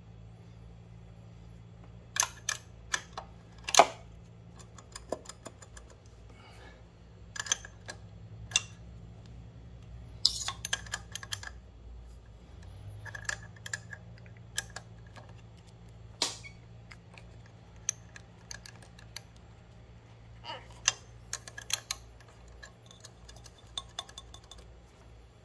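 Irregular sharp metallic clicks and taps of a 10 mm wrench working the shift linkage nuts on a Yamaha FZ1, a few of them much louder, over a faint low steady hum.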